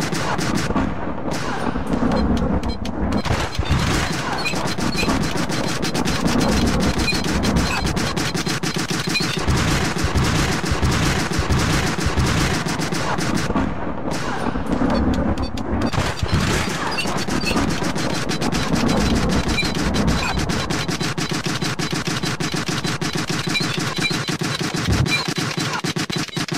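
Harsh noise-music soundtrack: a loud, dense crackle of rapid clicks and cracks spread across the whole range, settling into a more even, rapid clatter near the end.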